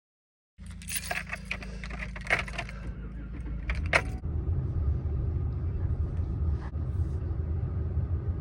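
Sharp metallic clinking and jangling, like keys or small metal parts being handled, for about three seconds over a steady low rumble that grows a little stronger after about four seconds in.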